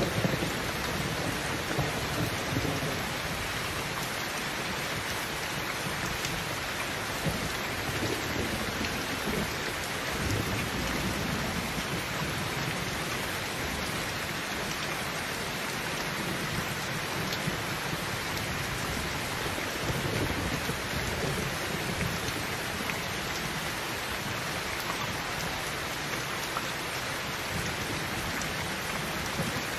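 Heavy rain pouring steadily onto a roof, a dense, even hiss, with low rumbles of thunder swelling and fading a few times.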